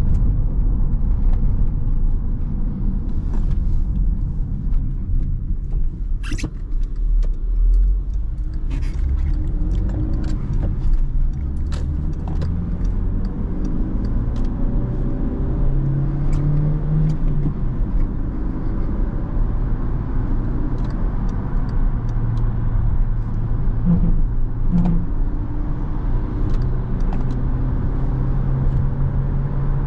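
Skoda Octavia II's 1.6 MPI four-cylinder petrol engine and tyre noise, heard from inside the cabin while driving. The engine note climbs between about eight and seventeen seconds in as the car accelerates. Light clicks are scattered throughout, with a sharper click about six seconds in.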